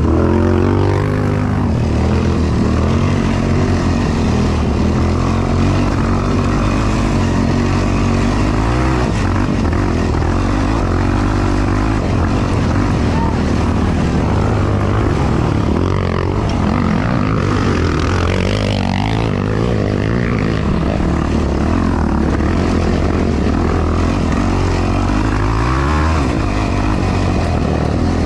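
Yamaha YFZ450R quad's single-cylinder four-stroke engine running hard on a race lap, its pitch rising and falling again and again as the throttle is opened and closed.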